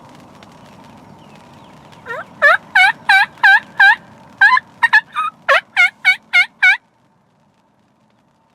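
Wild turkey calling: a loud series of about a dozen yelping notes, roughly three a second, each dipping and rising in pitch, starting about two seconds in and cutting off abruptly after about five seconds.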